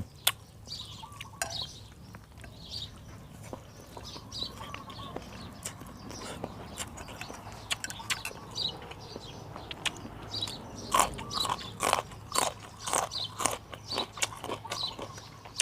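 Close-up eating sounds of beef noodle soup: slurping and chewing, with scattered mouth clicks. From about two-thirds of the way in, a quicker run of louder slurps and clicks.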